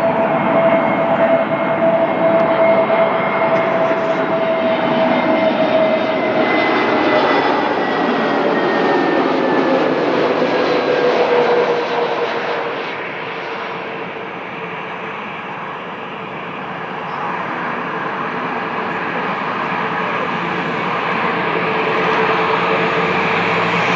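Airbus A320neo's CFM LEAP-1A turbofan engines whining loudly as the jet passes close by. Its engine tones drop in pitch about halfway through as it goes past.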